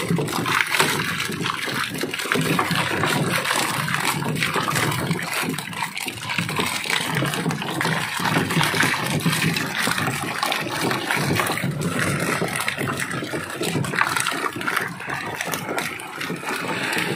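Water splashing and churning, with continuous irregular splashes from a netted catch of fish being scooped up.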